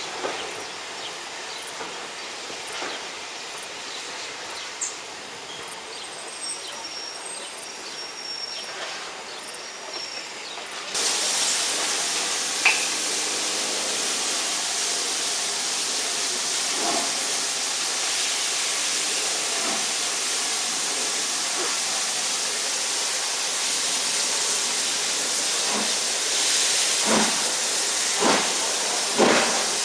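Steam locomotive blowing off steam: a loud, steady hiss starts suddenly about a third of the way in and carries on. Near the end, exhaust beats begin, about one a second and quickening, as the engine starts to pull away. Before the hiss there is only a quieter background with scattered clicks.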